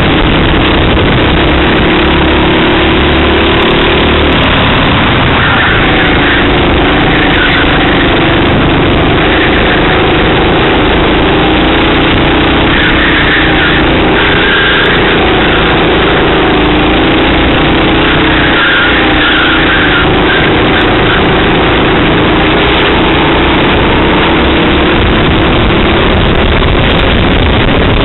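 Racing kart engine heard from onboard, running loud, its pitch rising and falling again and again as the kart brakes and accelerates through corners, over a steady rush of noise.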